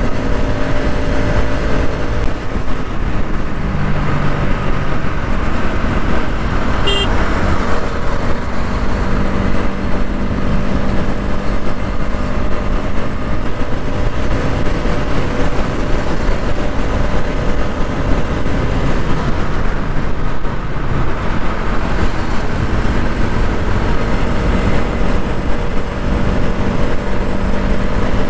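A Bajaj Pulsar NS200 motorcycle ridden in traffic, with a steady rush of wind on the microphone and the single-cylinder engine's note shifting in pitch beneath it as the speed changes. A brief sharp sound about seven seconds in.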